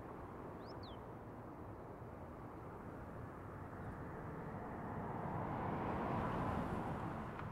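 Street ambience: a steady traffic hum with a car passing by, swelling to its loudest about six seconds in and then fading. A bird chirps twice briefly about a second in.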